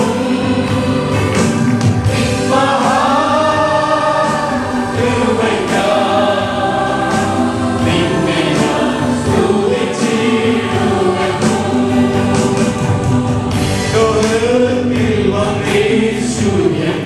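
Choir singing a Christian gospel song.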